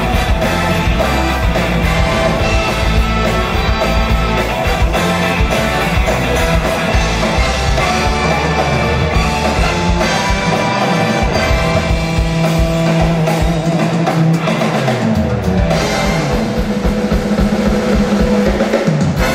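Live big band with strings playing a rock-styled instrumental: violins, electric guitar and drum kit together, loud and continuous.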